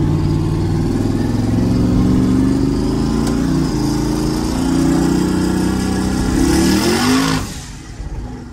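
Twin-turbo Camaro V8 accelerating at full throttle, heard from inside the car, its engine note climbing and shifting as it pulls. The rear tyres are not hooking up. A rushing hiss comes near the end as the throttle is lifted, and the engine sound drops away abruptly.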